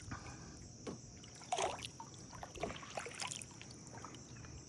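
Small drips and trickles of water around a kayak on still swamp water, the most distinct about a second and a half in. Behind them is a steady high-pitched insect drone.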